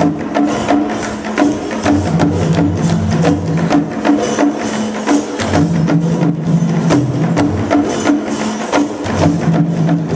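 Live percussion music: drums play a repeating low pattern under sharp, evenly spaced clicking strikes, keeping a steady, quick beat.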